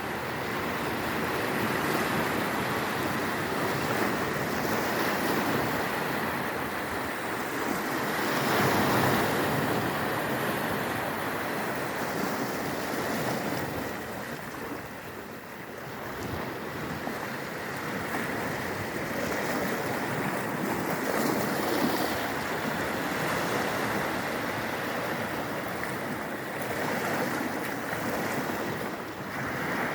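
Black Sea surf: waves breaking and washing up the beach in a continuous rush. It swells loudest about a third of the way in and again past the two-thirds mark, with a quieter lull in the middle.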